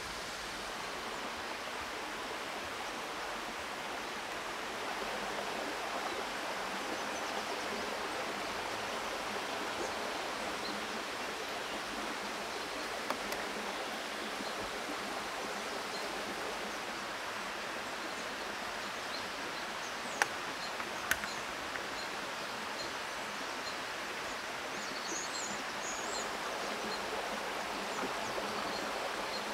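Steady rushing of a forest stream. Two sharp clicks come about two-thirds of the way in, and a few faint high bird chirps follow shortly after.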